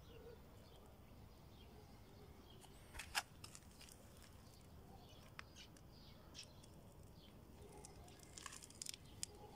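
Near silence: faint outdoor background with a few soft clicks, the loudest about three seconds in and a small cluster near the end.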